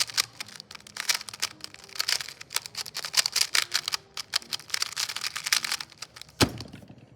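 3x3 speed cube being turned fast during a solve: a quick, uneven run of plastic clicks and clacks from the turning layers, ending with one sharp knock about six and a half seconds in.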